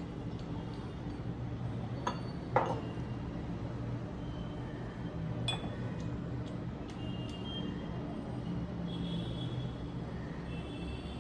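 Crockery clinking as pieces are handled and set down: a few sharp, light clinks, the loudest about two and a half seconds in, with fainter ticks a few seconds later.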